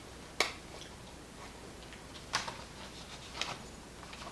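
Three sharp, light clicks of small metal lock parts and a key being handled: one about half a second in, one a little after two seconds, and one near three and a half seconds.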